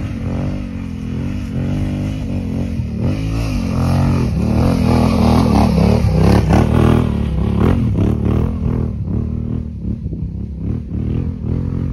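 Yamaha Ténéré 700's parallel-twin engine revving up and down as the bike climbs a steep dirt hill under load. It grows louder as it passes close by about six seconds in, then fades.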